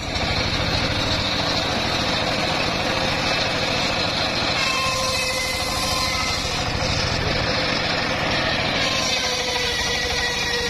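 Engine-driven homemade circular sawbench running steadily while its blade rips a long mahogany board lengthwise.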